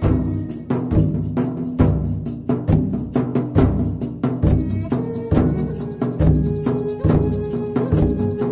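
Instrumental background music with a steady drum beat and fast rattling percussion over sustained low notes; a new held note comes in about halfway through.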